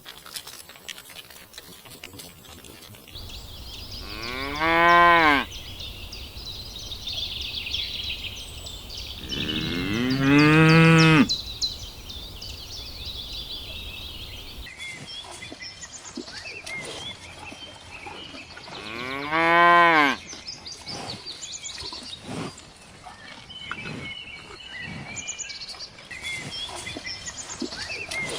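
Cattle mooing: three long, loud moos whose pitch rises and then falls, the second the longest, spread several seconds apart.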